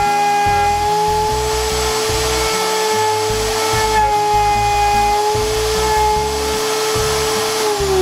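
Router in a router table running steadily with a 5/8-inch straight bit as a wood block is fed across it, routing a slot. Near the end the motor is switched off and its whine falls in pitch as it spins down.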